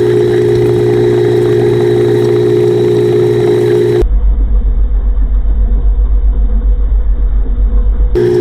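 A pressure washer running steadily and loudly with a constant hum. About four seconds in the sound switches abruptly to a deeper, pulsing rumble with the top muffled, and switches back just before the end.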